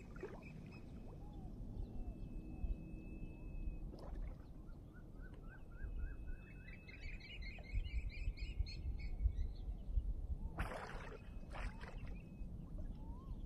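A bird calling: one held high whistle, then a run of quick rising chirps about four a second, over a steady low rumble. Two short noisy bursts come near the end.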